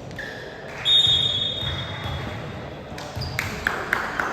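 Indoor volleyball game sounds in a large hall: a long, high steady tone from about a second in, then several sharp ball strikes and thuds near the end.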